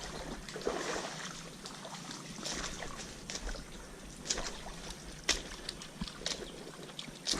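Creek water sloshing and splashing, with a few short sharper splashes scattered through it.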